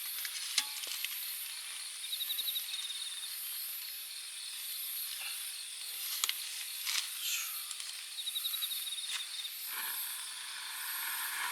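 Campfire burning with a steady hiss and scattered sharp pops, while autumn insects chirp steadily in a pulsing rhythm; a short buzzing insect trill comes twice.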